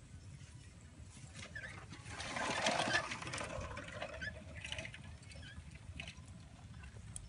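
Rustling and scrabbling of a wet cast net being handled on muddy ground. It is loudest for about a second and a half about two seconds in, with scattered small clicks around it.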